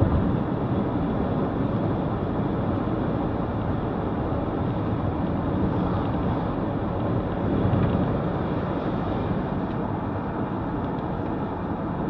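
Steady noise of a car driving, heard from inside the cabin.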